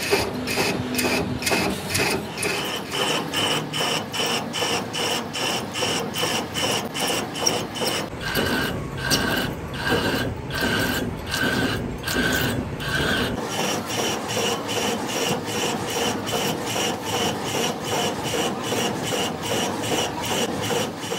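Metal being worked by a machine tool: a quick, regular scraping rhythm of about three strokes a second with a ringing metallic whine. The rhythm slows and changes pitch for a few seconds in the middle.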